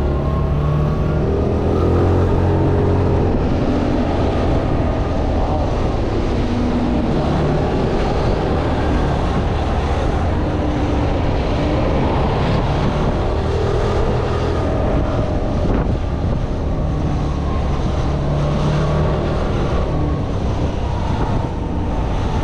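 Motor scooter's small engine running while it is ridden, its pitch rising and falling with the throttle, with wind rushing over the microphone.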